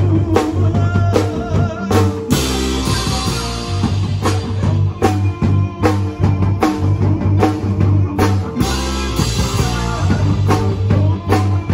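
Live rock band playing: a drum kit keeping a steady beat with electric guitar and bass, and cymbals crashing about two seconds in and again around eight seconds.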